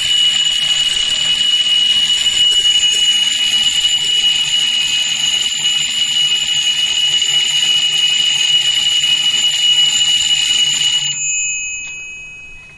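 Thunder-bell electric alarm clock's metal bell ringing continuously on its high speed setting, driven by a small 3-volt electric motor. The ringing stops about eleven seconds in and fades away.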